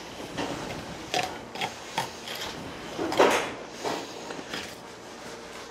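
Filleting knife cutting and scraping along a sea bass's backbone while the fish is handled on a plastic cutting board: a string of short scrapes and knocks, the loudest a little past the middle.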